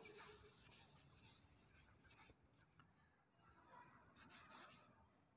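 Faint rubbing of a board duster wiping chalk off a chalkboard, scratchy during the first couple of seconds and briefly again a little past four seconds.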